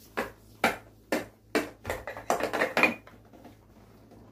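A quick run of sharp taps, about two or three a second, stopping about three seconds in.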